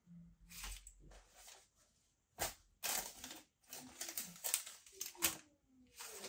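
Gift wrapping and baby clothes rustling and crinkling as they are handled, in a string of short crinkles that grow denser about two and a half seconds in.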